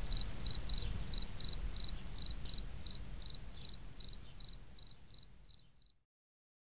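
Cricket chirping: short, high, evenly spaced chirps, about three a second, over a low rumble, fading and stopping near the end.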